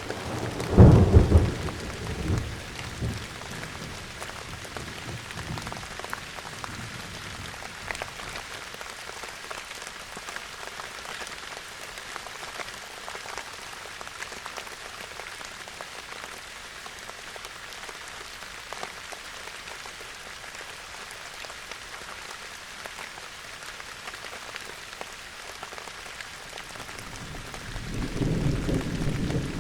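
Steady rain falling with scattered drop ticks, and a loud rumble of thunder about a second in that dies away over a couple of seconds. Another low thunder rumble builds near the end.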